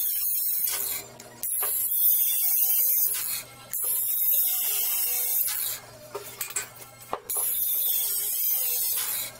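Cordless battery-powered angle grinder cutting through the protruding ends of long steel floor bolts: a loud high grinding hiss over a steady motor hum, in four bursts of one to two seconds each, stopping briefly between cuts.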